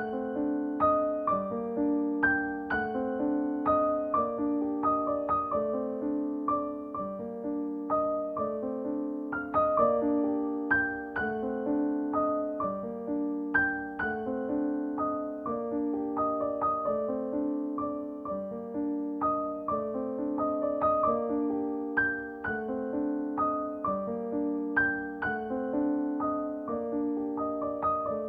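Gentle background piano music, soft repeated notes in an even, calm rhythm.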